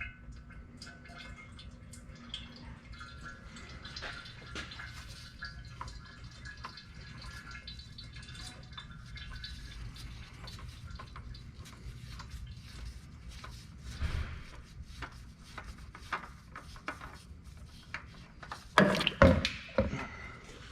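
Engine oil dripping and trickling from a loosened oil filter into a drain pan, a steady patter of small irregular drips. A few louder bursts come near the end.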